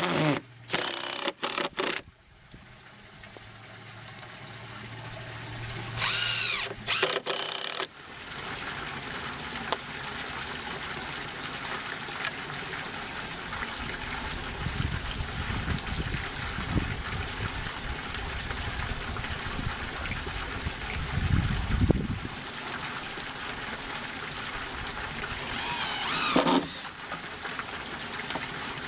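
DeWalt cordless driver running in short bursts, driving screws into the wooden grow-bed frame, its motor speeding up and slowing: two bursts in the first few seconds and another near the end. In between, a steady hiss with a few low rumbles.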